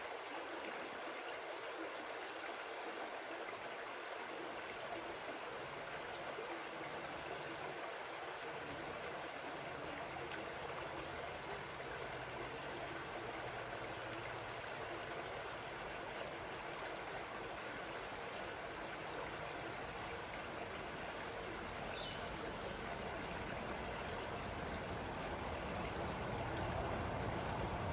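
Shallow creek water trickling and flowing over rocks in a steady wash, with a low rumble building in and growing louder near the end.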